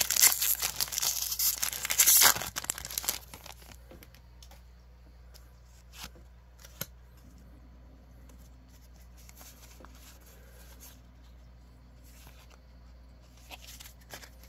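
Foil wrapper of a Pokémon card booster pack being torn open and crinkled, loud for about the first three seconds. Then it goes much quieter, with a few soft clicks as the cards are handled.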